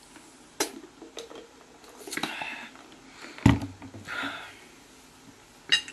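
A person drinking from a plastic bottle: a few gulps and wet mouth clicks, and two breaths out. About three and a half seconds in, a single loud thump as the bottle is put down on the table.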